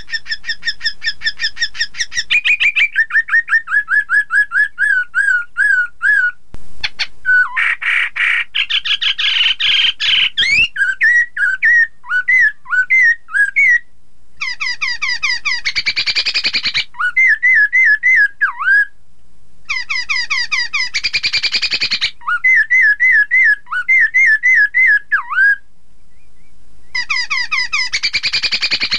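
Black-throated laughingthrush (poksay) singing loudly: fast runs of repeated whistled notes that glide up and down, broken four times by harsh, rapid chattering phrases.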